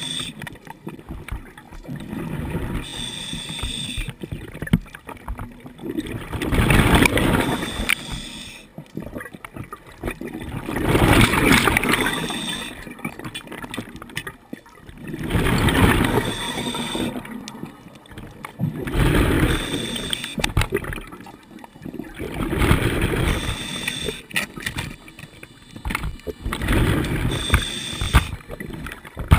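Scuba diver breathing through a regulator underwater: a short hissing inhale with a faint thin whistle, then a gurgling rush of exhaled bubbles, repeating about every four seconds.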